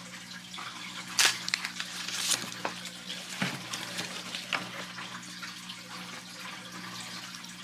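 Crackling and crinkling of the thin protective wrapping being peeled off a small plastic power adapter, with a few sharper crackles. Under it runs the steady trickle of an aquarium's water and a low hum.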